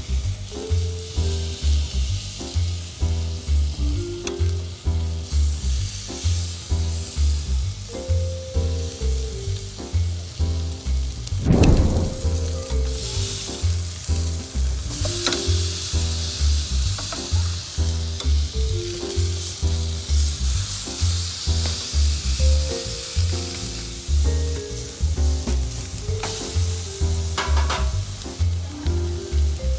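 Bone-in ribeye steaks sizzling as they sear on a gas grill. Background music with a steady beat and a bass line plays throughout, louder than the sizzle, which swells and fades several times.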